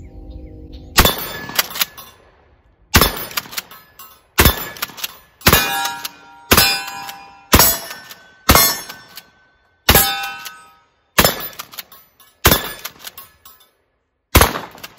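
Kel-Tec KSG 12-gauge pump shotgun firing 1.75-inch Federal mini-shell slugs in a fast string, eleven shots about one to one and a half seconds apart, the pump cycled hard between them. Steel targets ring with a metallic clang after several of the shots.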